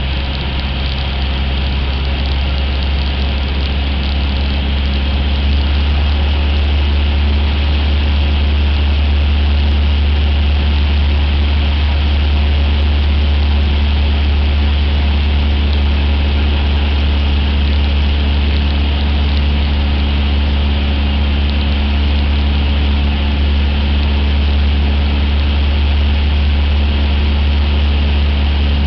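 Cessna 172's piston engine and propeller droning steadily in cruise flight, heard from inside the cabin, with a deep, even hum that grows a little louder over the first few seconds.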